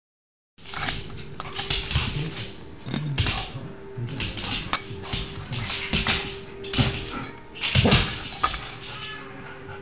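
A Labradoodle play-fighting with a cat on a hard floor: irregular bursts of scuffling and dog sounds, with sharp clicks of claws on the floor between them.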